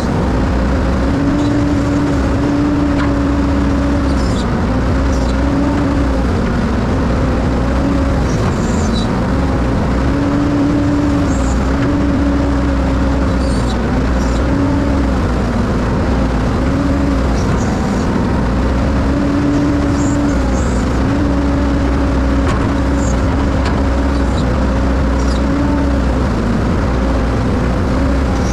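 A heavy machine's engine, most likely the excavator's, running steadily with a droning hum that wavers slightly in pitch over a low rumble.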